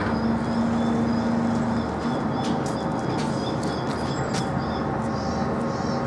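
Birdsong: rows of short, high chirps repeating over and over, over a low steady hum and a constant background rush. A few sharp clicks come about halfway through.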